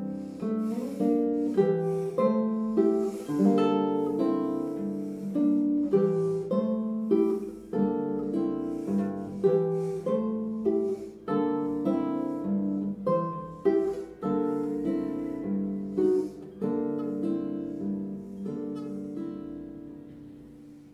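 Solo nylon-string classical guitar played fingerstyle: a passage of quick plucked notes and chords that starts suddenly after a pause, with repeated sharp accented chords, and dies away near the end.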